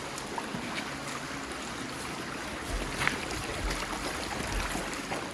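A river running high, its water rushing with a steady hiss, with a brief low thump of wind on the microphone about three seconds in.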